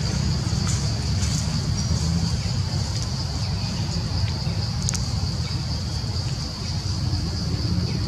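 A steady, high-pitched drone of insects, over a constant low rumble, with a few faint clicks.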